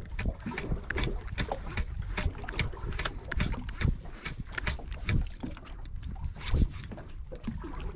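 Water slapping irregularly against a boat's hull, with low wind rumble on the microphone.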